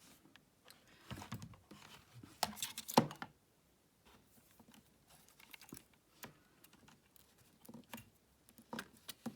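Light handling noises of small hard objects: scattered clicks, taps and rustles. They are busiest in the first three seconds, with a sharper click about three seconds in, then fainter ticks.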